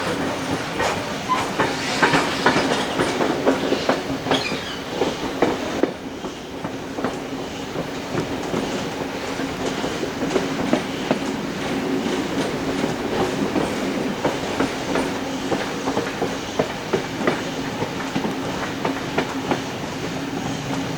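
Steam-hauled passenger train running, its carriage wheels clicking and clattering over rail joints over a steady rumbling hum. The clatter is busiest in the first few seconds.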